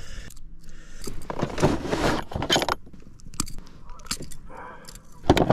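Metal jangling and clicking as pliers work a crankbait's treble hooks out of a bass's mouth: irregular sharp clicks and a few short rattling bursts.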